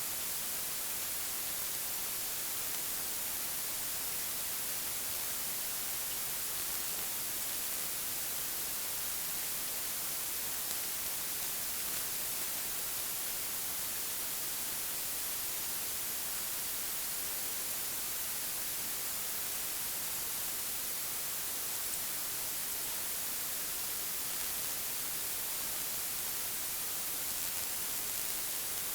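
A steady, even hiss, strongest in the high frequencies, with no distinct events in it.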